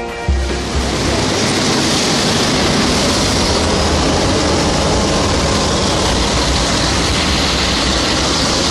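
Steady, loud engine and wind noise of a jump plane in flight, heard inside the cabin as a constant low rumble under a hiss.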